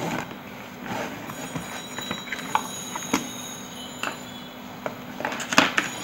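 A few small clicks and knocks of a digital multimeter being handled: its rotary range selector turned and the meter set down on the table, over a steady low hum.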